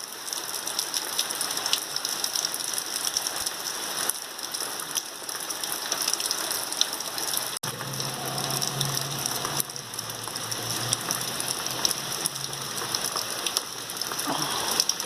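Heavy rain falling steadily, a dense patter of drops. About halfway through, the sound drops out for an instant, and a low hum then joins the rain for about five seconds.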